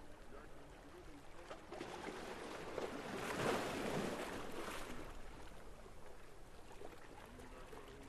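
Seawater lapping and splashing against a waterfront, swelling into a louder wash about three and a half seconds in, then settling back.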